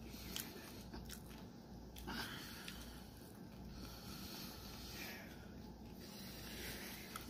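Faint heavy breathing and sniffling from a man suffering the burn of an extremely hot chili chip, with a louder breath about two seconds in and again around five seconds.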